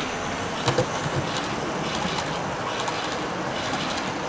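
H0 scale model train, an electric locomotive hauling container wagons, rolling past on the layout track, its wheels clicking over the rails, with two sharper clicks a little under a second in. A steady background hum of the exhibition hall runs underneath.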